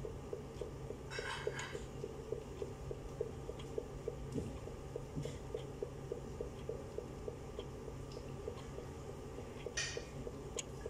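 Faint clinks and clatter of dishes or utensils, about a second in and again near the end, over a steady low hum and a faint even ticking about four times a second.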